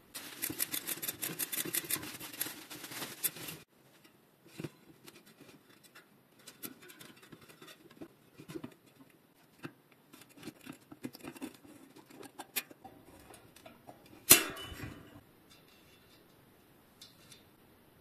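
Bicycle rear hub freewheeling with the cassette off: the freehub's pawls click in a fast, steady run for about three and a half seconds and then stop abruptly. Slower, scattered clicks of handling follow, with one sharp knock about fourteen seconds in.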